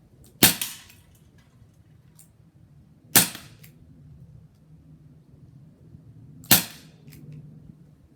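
Crosman SNR 357 non-blowback CO2 air revolver firing three shots, about three seconds apart, each a sharp crack with a short tail.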